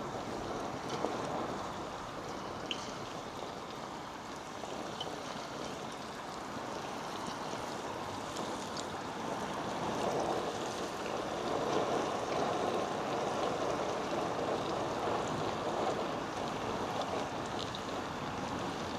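Chicken pieces deep-frying in hot oil: a steady sizzle with a few faint pops, a little louder in the second half.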